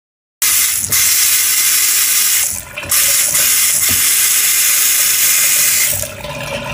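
Bathroom sink faucet running, a loud steady rush of water into the basin that cuts in abruptly just under half a second in and drops away briefly twice.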